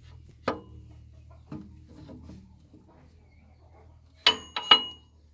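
Metal parts and tools being handled during a tractor hydraulic pump repair. A sharp knock, a duller clunk about a second later, then two loud ringing metallic clinks about half a second apart near the end, over a low steady hum.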